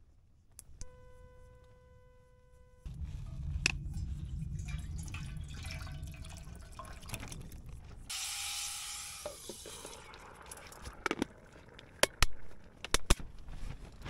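Thick liquid food poured from a pouch into a container, a splashing pour lasting about two seconds. Earlier there is a steady buzzing tone for about two seconds, and near the end several sharp, loud clicks and knocks.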